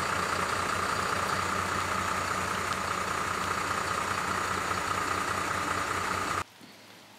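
Fire engine's diesel engine idling steadily, with a steady whine over its low running. It cuts off abruptly near the end, leaving only a faint hiss.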